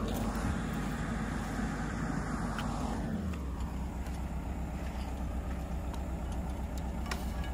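JCB 145 tracked excavator's diesel engine running steadily. About three seconds in the note drops to a low idle rumble.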